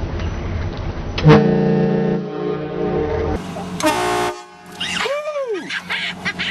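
Aftermarket air-powered train horn, fed from a 150 psi air tank, blasting a chord of several steady tones for about two seconds, starting suddenly, then a shorter second blast. A person's voice cries out near the end.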